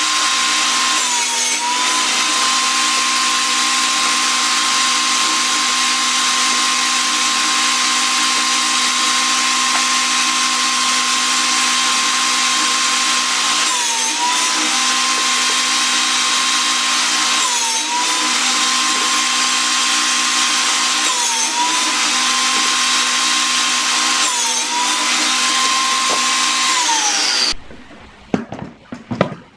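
Bench-mounted table saw running with a steady whine, its pitch dipping briefly about five times as the blade bites into the wooden boards and recovering each time. The saw sound cuts off shortly before the end, leaving a few light wooden knocks of boards being handled.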